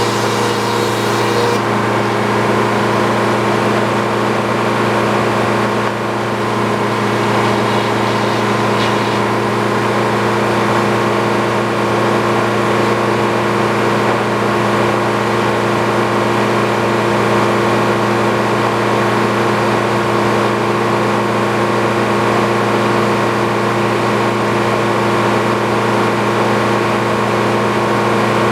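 Sawmill engine running steadily at an even pitch.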